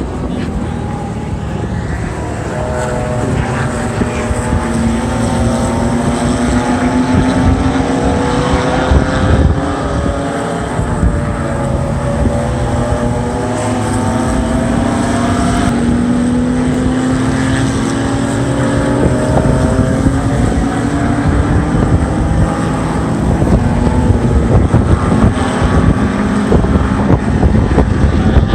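Several race car engines at high revs, one after another, each engine note climbing steadily over several seconds as the car accelerates, over a continuous loud rumble.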